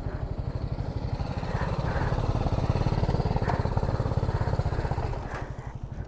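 Motorcycle engine running with an even, rapid pulsing beat. It grows louder through the middle and eases off near the end.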